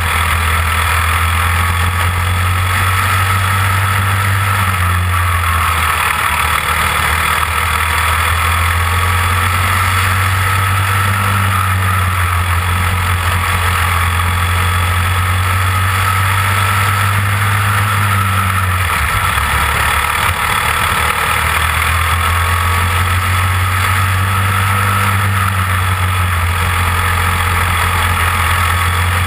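Small open-wheel dirt-track race car's engine running under racing load, heard from the onboard camera on the car, with its note dipping twice.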